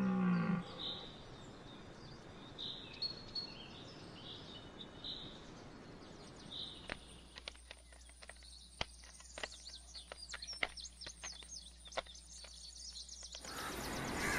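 A deer stag's deep roar ends about half a second in. It is followed by outdoor background noise with faint high bird chirps. From about seven seconds a run of sharp, irregular clicks begins.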